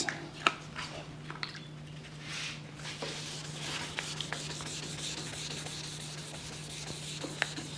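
1500-grit sandpaper on a soft sanding block being rubbed back and forth over the painted steel cab of a 1953 GMC truck, wet-sanding the clear coat to level orange peel and take out 1000-grit scratches. A steady low hum runs underneath.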